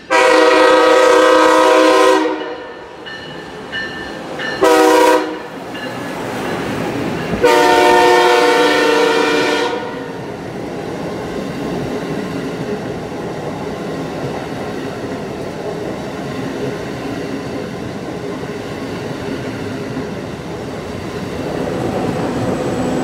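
Amtrak Acela Express trainset sounding its multi-note horn: a long blast, a short one and another long one. The steady rolling noise of the train running through the station at speed follows.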